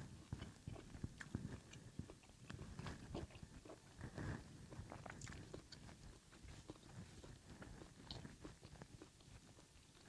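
A person chewing a bite of grilled tomahawk steak with the mouth closed: faint chewing with a scatter of soft, irregular mouth clicks.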